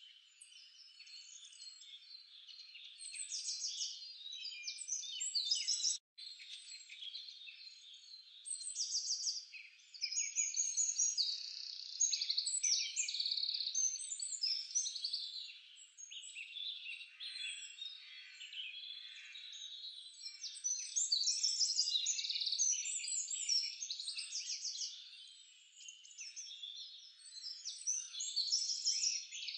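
A dense chorus of small birds chirping, twittering and trilling continuously, high-pitched and overlapping, with a brief gap about six seconds in.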